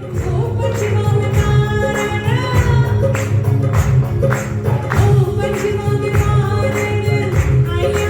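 Music: a song with a sung melody over a steady percussion beat and bass.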